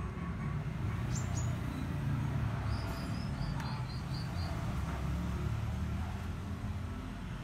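Steady low background rumble, with a quick run of five short, high bird-like chirps about three seconds in.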